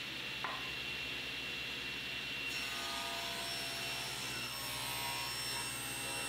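SawStop table saw ripping cherry boards: a steady whine from the spinning blade, with more high tones joining about two and a half seconds in as the cut goes on.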